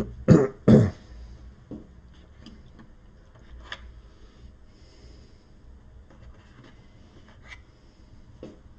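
Hands handling a board game's plastic box insert and miniatures: three loud handling knocks in the first second, then faint, scattered plastic clicks as the miniatures are picked out of the tray.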